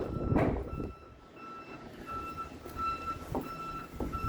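An electronic beeper sounding a steady high-pitched beep over and over, about two to three beeps a second. A loud thud comes about half a second in, with a few lighter knocks later.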